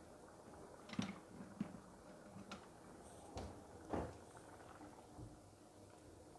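About half a dozen light knocks and clatters of kitchenware at a stovetop pot, the loudest about a second and about four seconds in, over the faint bubbling of a pot of chicken and water at the boil.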